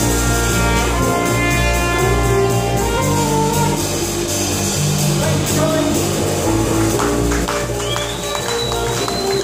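A small jazz band plays live. A brass horn holds long melody notes over electric bass, keyboards and drums, and the cymbal strokes pick up in the second half.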